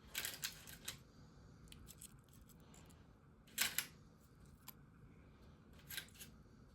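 Faint, scattered clicks and light knocks of air-fried potatoes being set out on a plate, with the loudest knock about three and a half seconds in.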